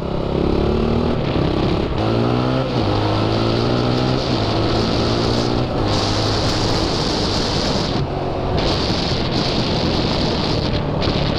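Triton 450 quad's engine pulling hard on the road. Its pitch climbs, drops at a gear change about three seconds in, then climbs again. Wind rushes over the helmet-mounted microphone throughout.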